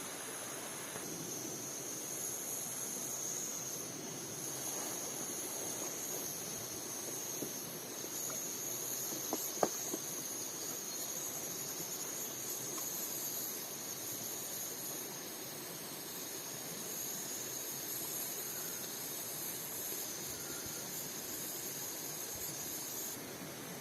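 Insects, crickets or cicadas, calling in a continuous high-pitched drone over a steady noisy background; the calling cuts off shortly before the end. A single sharp click about ten seconds in.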